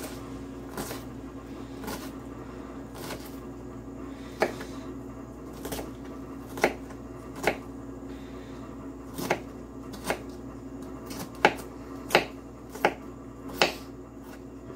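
Kitchen knife chopping an onion finely on a cutting board: a dozen or so sharp knocks at an uneven pace, over a steady low hum.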